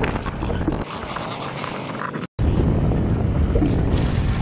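Wind buffeting a phone microphone over the low rumble of a safari vehicle on the move. The sound cuts out for a moment about two seconds in and returns at once.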